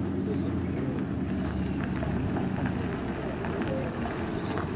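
A motor vehicle's engine running steadily, a low hum.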